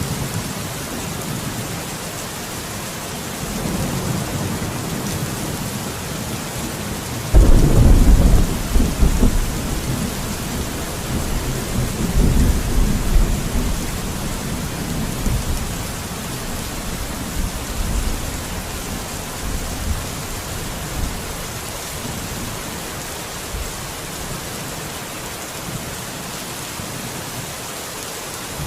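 Steady heavy rain hissing, with a sharp thunderclap about a quarter of the way in that rolls on as a low rumble for several seconds; fainter rumbles of thunder come before and after it.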